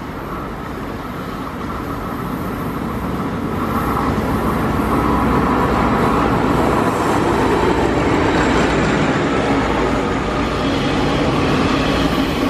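A DF4B diesel-electric locomotive, with its 16-cylinder diesel engine running, approaches and passes, growing louder over the first half. Then its train of freight wagons rolls by on the rails at a steady level.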